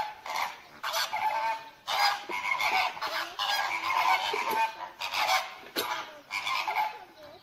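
A flock of flamingos honking: many short calls in quick succession, overlapping in places, with brief pauses between.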